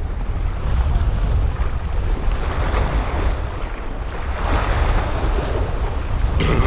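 Sea waves washing and breaking over shoreline rocks, swelling louder twice, with heavy wind rumble on the microphone.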